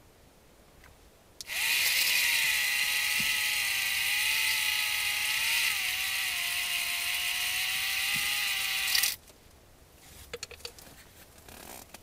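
A small electric smelt-fishing reel's motor whines steadily for about seven seconds as it winds in the line, its pitch dipping slightly partway through, then cuts off suddenly. Light clicks and rustles of the rig and fish being handled follow near the end.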